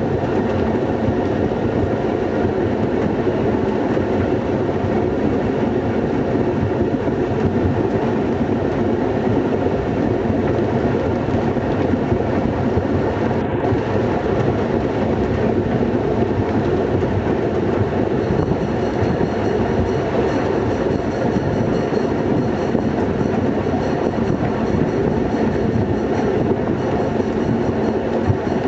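A train hauled by the V1 diesel locomotive running steadily, heard from the open end platform of a carriage: a constant drone of the locomotive's engine mixed with wheel and rail noise. A faint high whine joins about two-thirds of the way through.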